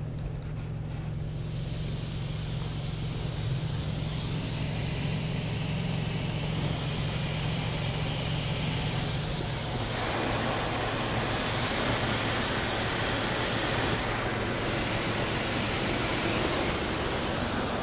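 Water jets of a Karcher Opti Wash 8000 in-bay automatic car wash spraying the car, heard from inside the cabin as a steady rushing hiss over a low machine hum. About ten seconds in the hum drops away and the spray grows fuller and a little louder.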